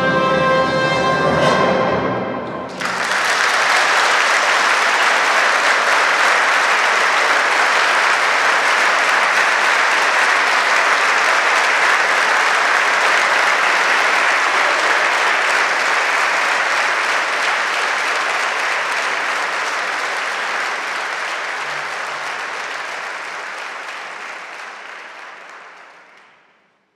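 A full orchestra with brass holds its closing chord and cuts off sharply about two and a half seconds in. An audience then applauds steadily, fading out near the end.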